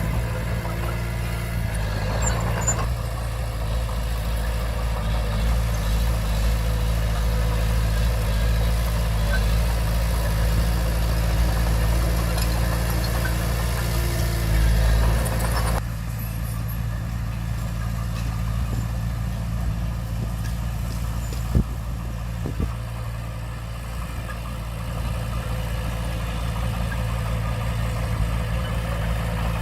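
Komatsu D20P bulldozer's diesel engine running steadily. About halfway through the sound changes abruptly and loses its higher part, and a single sharp knock comes a few seconds later.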